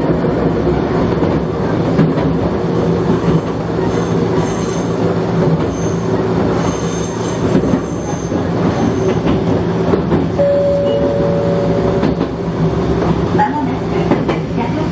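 Gakunan Railway electric train running along the track, with a steady motor hum and rail rumble. A thin, high wheel squeal comes in between about four and nine seconds in.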